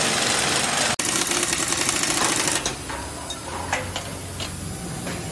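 Pneumatic air tool rattling rapidly and loudly on a motor-tricycle assembly line, cutting off sharply after about two and a half seconds, followed by quieter workshop noise with a few sharp metal knocks and a low hum.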